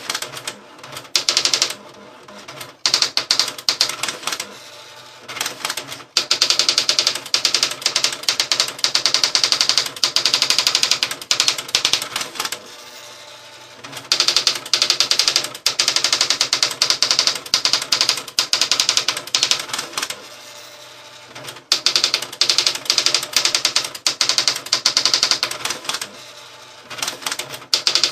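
Olivetti ET Personal 510 electronic typewriter typing by itself in its built-in auto-demo mode: fast, even clatter of key strikes in runs of several seconds, each run broken by a short, quieter pause between lines.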